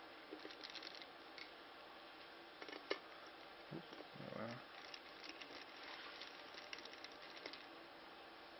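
Faint scattered clicks and taps of a screwdriver and small plastic and metal camera parts being handled, with one sharper click about three seconds in.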